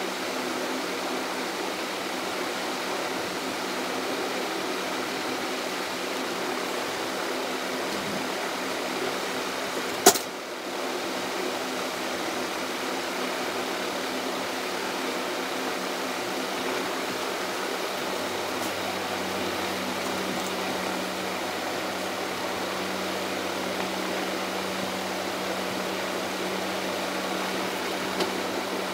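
Steady whir and hum of room ventilation, like a fan running, with one sharp click about ten seconds in and a deeper hum joining a little past halfway.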